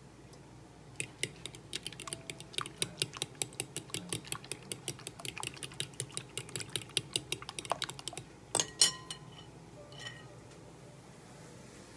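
Metal fork beating raw eggs in a glass mixing bowl: a fast, uneven run of clicks as the fork strikes the glass. About eight and a half seconds in, two or three louder knocks ring out, the fork hitting the bowl.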